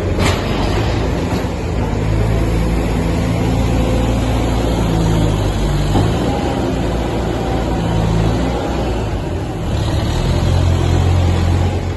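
Large diesel engine of harvest machinery running steadily, its low hum growing stronger about ten seconds in.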